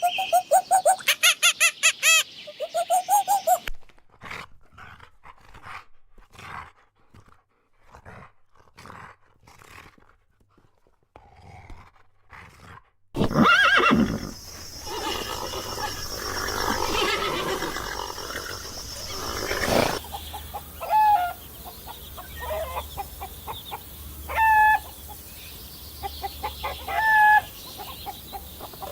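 Farm animal calls from several animals in turn. A fast run of repeated calls opens it, then come fainter scattered calls and a loud, harsh call about halfway through, and short pitched calls near the end.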